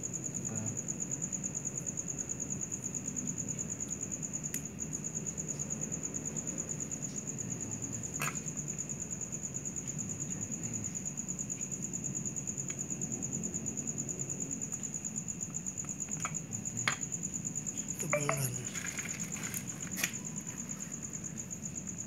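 Cricket trilling steadily at a high pitch. A few scattered sharp clicks and knocks break in, with a short cluster of them about eighteen seconds in.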